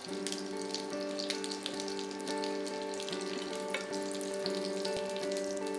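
Turnips sautéing in hot fat in a frying pan: a steady sizzle with small crackles and pops. Background music of held notes plays under it.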